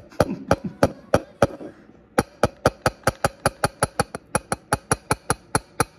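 Rapid sharp tapping, about four taps a second, as a dish is tapped to knock dried refined gold powder into a plastic cup. The tapping pauses briefly about two seconds in.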